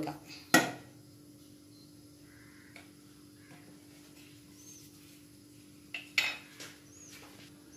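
A metal spoon knocking against a nonstick pan: one sharp clink about half a second in, then a few lighter knocks about six seconds in. A faint steady hum runs underneath.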